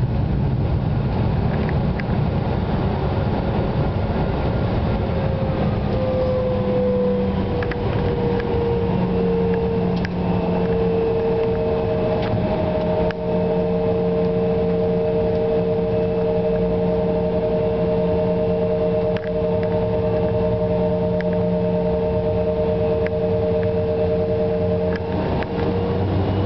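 Embraer 175's twin turbofan engines heard from inside the cabin while the jet rolls along the ground: a steady rumble with a constant whine that sags slightly in pitch in the first third, and a few light knocks from the wheels.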